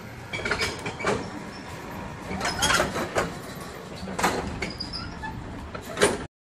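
A run of irregular metal knocks and clinks, some ringing briefly, from a small trailer being hooked up by hand. The sharpest clank comes just after six seconds, then the sound cuts off abruptly.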